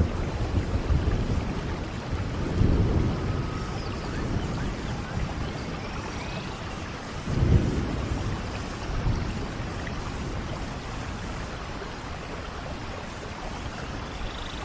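Rainforest thunderstorm: steady heavy rain with rolling thunder. Deep rumbles swell about two and a half and seven and a half seconds in, the second the loudest, with a smaller one shortly after.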